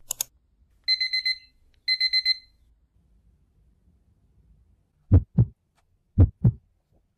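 Electronic alarm beeping: two quick runs of four high beeps, about a second apart. From about five seconds in, low heartbeat-like thumps come in pairs, about once a second.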